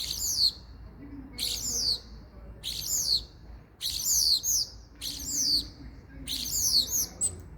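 Common starling calling: six short, high calls, each sliding down in pitch, repeated about once a second.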